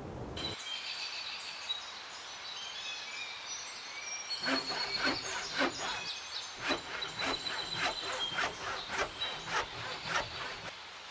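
Quick, sharp strokes of a hand saw on a hollow bamboo pole, about three a second, starting about four seconds in with a short break partway through. Birds chirp steadily underneath.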